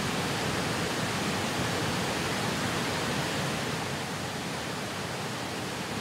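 Steady rush of a large waterfall pouring over rock, an even wash of water noise with no let-up.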